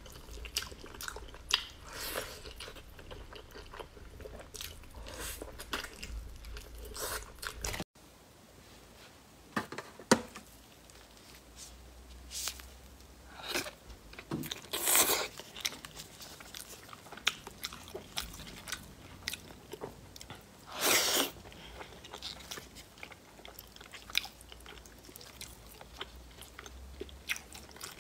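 Close-miked eating: a person biting and chewing braised meat (beef bone pieces, then braised pork belly), with many small clicks and mouth sounds. There are two louder, longer bursts in the second half.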